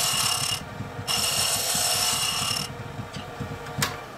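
Carbide detail tool scraping the front face of a spinning wooden toy wheel on a wood lathe, rounding over the raised rim. There are two passes, broken by a short gap about half a second in, and the cutting stops a little under three seconds in. A single sharp click comes near the end.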